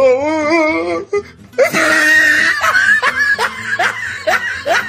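A warbling sound with a wobbling pitch for about a second, then a few seconds of quick, repeated laughter over music.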